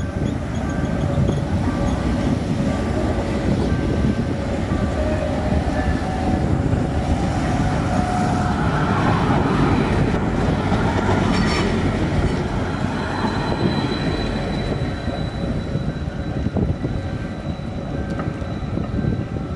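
Tram running on its rails: a steady loud rumble with thin squealing tones from the wheels that come and go.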